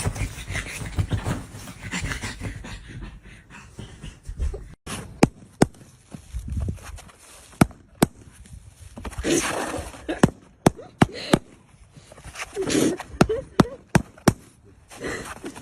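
A dog panting in quick, rhythmic breaths, then a run of sharp, separate clicks with a few short voice sounds between them.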